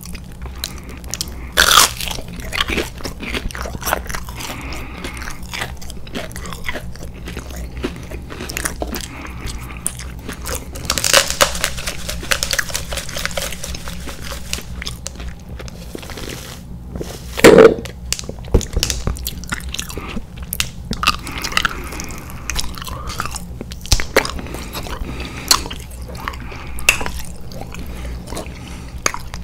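Close-miked chewing and biting of McDonald's chicken nuggets: wet mouth sounds and small crunches, with a few louder sharp sounds about two seconds in and a little past halfway.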